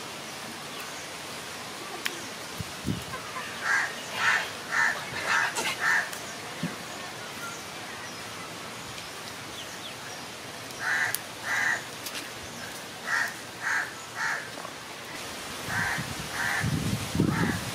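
A bird calling outdoors in short, evenly spaced calls that come in runs of two to five, with pauses of a few seconds between the runs. A low, muffled sound comes in near the end.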